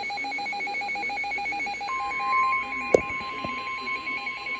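Emergency alert tones: a rapidly pulsing alert tone, joined about two seconds in by the steady 1050 Hz NOAA Weather Radio warning alarm tone. A sharp click comes about three seconds in.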